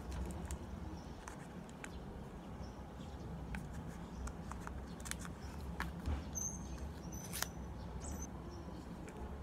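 Faint scattered clicks and taps of a plastic cushion-foundation compact being handled and opened, its seal fingered, over a low steady room hum. A few short high chirps come in about six to seven and a half seconds in.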